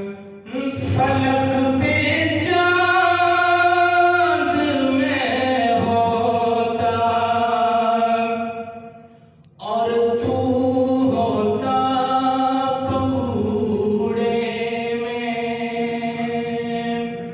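A man's unaccompanied voice singing an Urdu naat (devotional praise of the Prophet), drawing out long, held, ornamented notes. There are two short pauses for breath, one near the start and one about halfway through.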